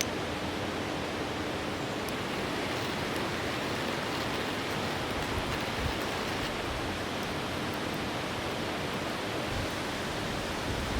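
Steady rushing of a mountain river flowing over rocks.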